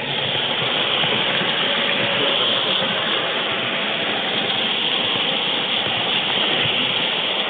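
N scale model train rolling along the track, a steady, even rumbling hiss heard from on board the moving train.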